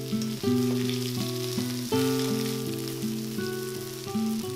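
Sliced red onion sizzling in hot oil in a wok over high heat, under instrumental background music of struck notes that fade away, a new one every second or so.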